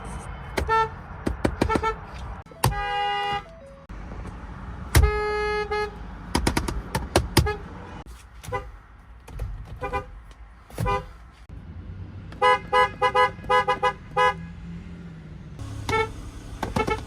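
Ford Escape car horns honking: a string of short toots and two blasts of about a second each, then a quick run of about eight short beeps.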